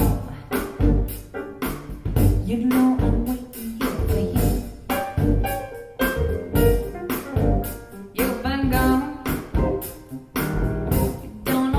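A song with singing over a steady drum beat, played back through KEF LS50 Black Edition bookshelf speakers.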